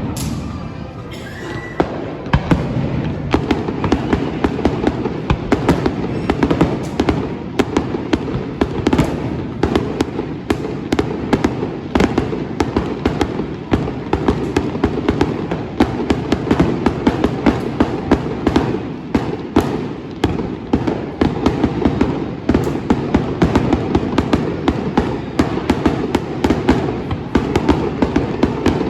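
Fireworks display in a dense, continuous barrage: many bangs a second overlapping over a constant low rumble, building up about two seconds in and going on without a pause.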